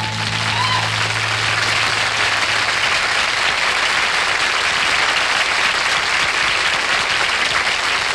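Television studio audience applauding steadily at the end of a rock song, with the song's last low note fading out over the first few seconds.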